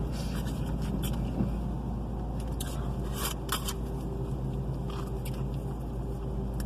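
Someone eating a burrito: chewing with a few brief crinkles and rustles of the wrapper, over a steady low hum.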